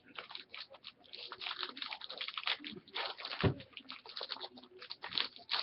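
Crinkling and rustling of trading card pack wrappers and cards being handled, in quick crackly strokes, with one dull knock on the table about halfway through.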